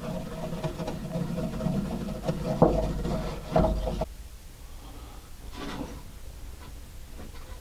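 Small wire brush scrubbing old grease off metal window-regulator parts inside a car door, a rasping scrape in repeated strokes that stops about four seconds in.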